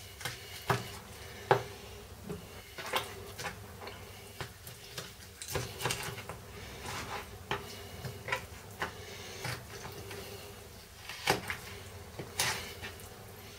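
Boker PSK fixed-blade knife cutting up a raw chicken on a plastic cutting board: scattered light knocks and clicks as the blade and the pieces meet the board, with soft handling of the meat between them.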